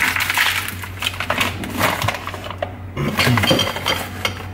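Kitchen clatter: objects handled and knocked against each other and the counter, with a quick run of knocks about three seconds in, over a steady low hum.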